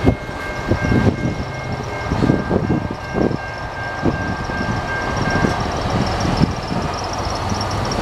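Freight train's locomotive horn, heard at a distance, holding one long steady blast that ends about five and a half seconds in. Under it runs the rough rumble of the train moving away.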